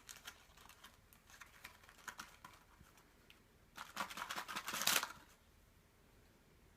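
Plastic packaging being handled: small crinkles and clicks, then a louder second of crinkling and tearing about four seconds in.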